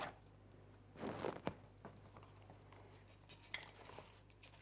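Rice being stirred in fat in a steel cooking pot: a short rustle about a second in, then a few light clicks of the spoon against the pot.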